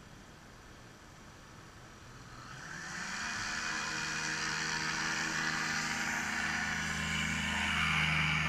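Engine of another ultralight trike running nearby, growing louder from about two seconds in as it approaches and then holding a steady pitch.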